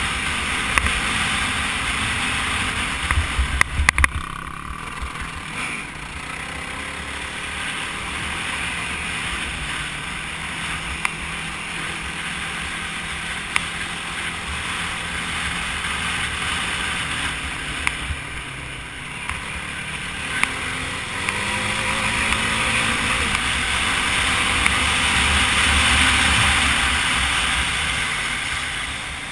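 Onboard sound of a quad riding fast on a dirt road: the engine running under throttle beneath a steady rush of wind and tyre noise, with a cluster of sharp knocks about three to four seconds in. The engine note shifts in pitch a little past the middle and the whole sound grows loudest near the end.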